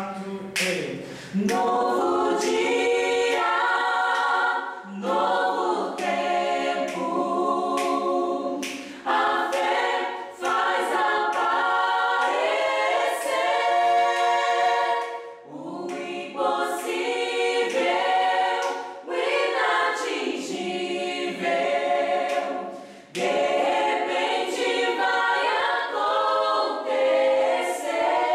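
Small mixed group of men's and women's voices singing a gospel song together unaccompanied, in long phrases with short breaks, during a rehearsal.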